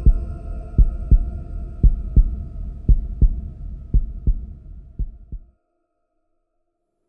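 Heartbeat sound effect: paired low thumps about once a second over a faint steady tone. The beats fade and stop about five and a half seconds in.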